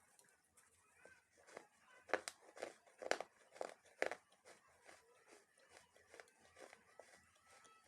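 Crunchy food being bitten and chewed: a run of short, sharp crunches, loudest about two to four seconds in, at roughly two a second.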